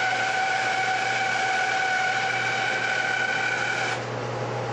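DELTA 14-inch bandsaw with a half-inch blade resawing a board: steady running with a constant low hum and a whine at several pitches. Near the end the whine drops away, leaving the hum and a steady hiss.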